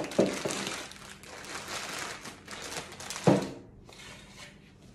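Clear plastic bags of suspension bushes crinkling as they are handled, with a thump just after the start and a louder thump a little past three seconds in as they are set down on the table.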